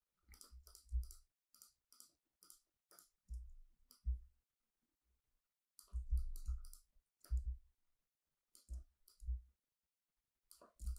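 Computer mouse clicking in small irregular clusters, each click with a dull low knock beneath it, as shapes are selected, copied and placed on screen.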